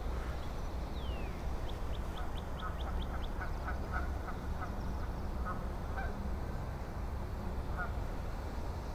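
Birds calling over a low steady rumble: scattered distant waterfowl honks, a single falling call about a second in, then a quick run of about eight high chirps.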